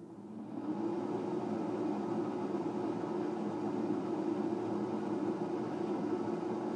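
Cosori 5.5-litre air fryer starting up on its fries programme: the fan spins up within about a second, then runs with a steady hum, somewhat louder than the smaller model yet not bothersome.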